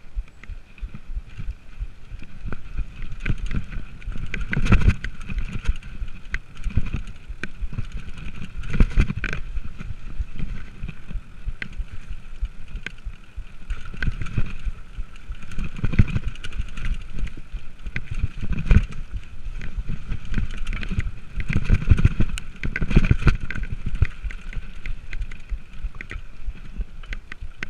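Mountain bike descending a dirt singletrack: continuous rumble of the tyres over the rough ground, rattle and clicks from the bike, and heavier jolts from bumps every few seconds.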